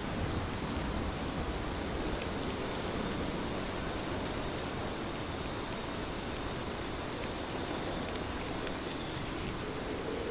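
Steady heavy rain falling on foliage, an even hiss with scattered drop patter.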